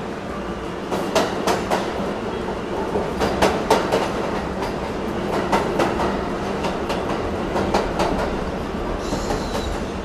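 Wooden toy subway cars rolling along wooden train track, the wheels rumbling with irregular clicks as they pass over the track joints.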